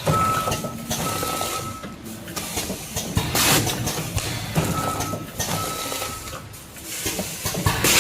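Vertical form-fill-seal packing machine with measuring-cup filler running through its bagging cycle. There is a continuous mechanical clatter, a short hissing burst about every four seconds (twice here), and a thin high whine between the bursts.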